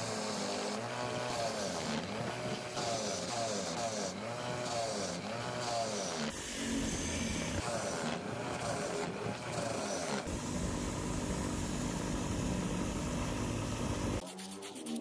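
Bench grinder running while a metal motorcycle clutch sprocket is pressed against its wheel to grind it clean. The motor's pitch dips and recovers again and again as the part is pushed in, then gives way to a rougher, steadier grinding noise, and the sound changes abruptly near the end.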